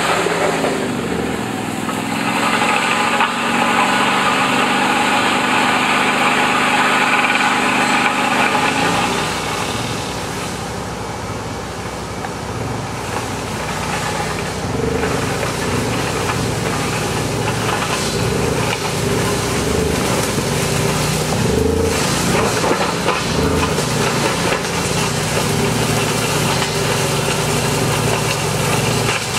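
Chapman ATV flail mower running through brambles and undergrowth, towed by a quad bike: a steady engine drone mixed with the rush of the spinning flails. The engine pitch drops in the first second, then holds steady. From about nine seconds in the sound turns rougher and noisier, dips, then grows louder again as the machine comes closer.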